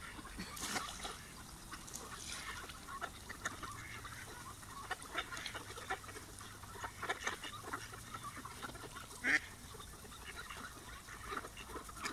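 A flock of mallard ducks feeding on the ground, quacking now and then, with many quick pecking clicks from their bills; one louder call about nine seconds in.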